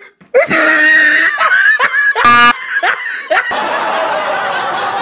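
Laughter in bursts, with a short buzzing sound about two seconds in, then a steady noisy stretch from about three and a half seconds on.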